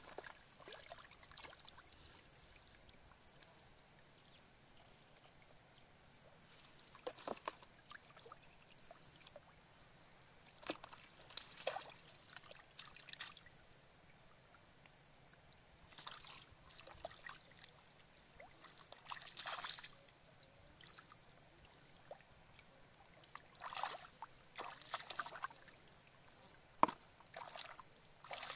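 Shallow water splashing and sloshing in short bursts every few seconds as hands grope through grass clumps under the water, with one sharp click near the end.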